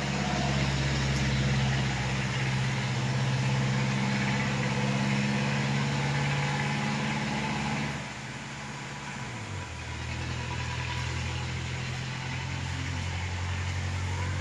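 An engine running steadily with a low hum; about eight seconds in, its pitch and loudness drop and it carries on at the lower speed.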